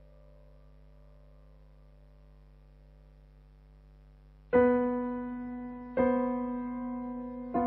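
Sparse music on a keyboard instrument. A faint steady ringing tone holds for the first half, then comes a loud struck note, the same note again about a second and a half later, and a third at a different pitch just before the end, each ringing out and slowly fading.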